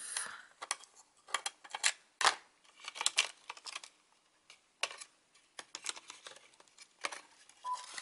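Irregular small clicks, taps and light scrapes of fingers working a part loose inside an opened laptop, around its cooling fan and copper heat pipe.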